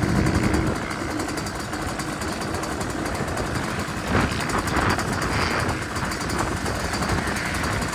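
Pit bike engines running, swelling louder about halfway through.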